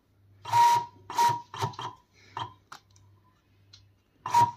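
Skycut vinyl cutting plotter running its test cut, cutting a small square at low blade force. Its stepper motors drive the carriage and rollers in short strokes, each with a whining tone: about five strokes in the first two seconds and two more near the end.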